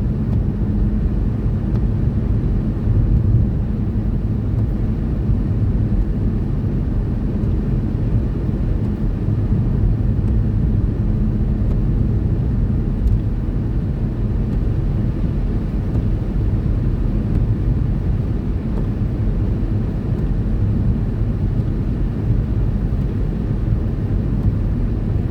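Steady low rumble of a car's engine and tyres heard inside the cabin while it drives along a motorway.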